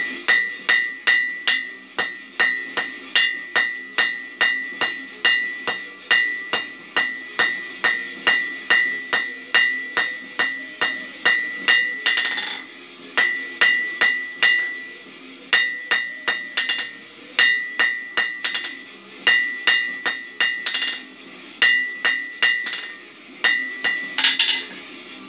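Hand hammer striking red-hot steel on an anvil, about two to three blows a second in runs of several seconds with short pauses between them. Each blow leaves the anvil ringing briefly.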